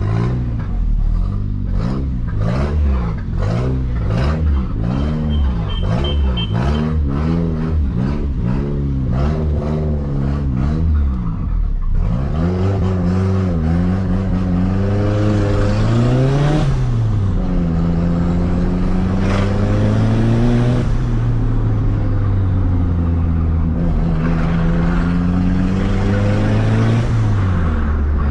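Toyota Starlet EP82's converted 4E-FTE turbocharged four-cylinder engine being revved: quick repeated throttle blips for about the first twelve seconds, then three longer runs where the engine pitch climbs and drops back.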